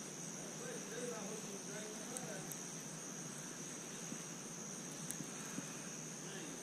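Steady chorus of night insects such as crickets: a continuous high-pitched trill that does not let up.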